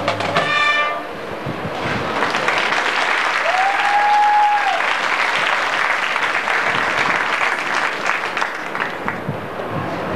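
A marching band's brass chord cuts off about a second in, then the crowd in the stands applauds and cheers, with one long whistle rising out of the clapping near the middle.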